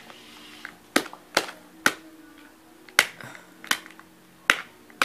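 Sharp plastic clicks, about seven at irregular intervals, from a small Kinder Joy plastic toy being handled and worked.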